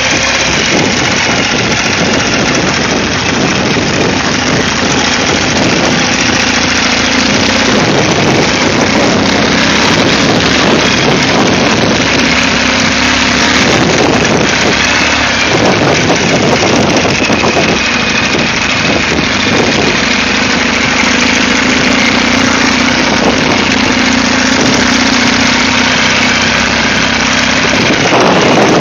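Ural motorcycle's flat-twin engine running loudly and steadily while the bike rides slowly, its note shifting a little now and then.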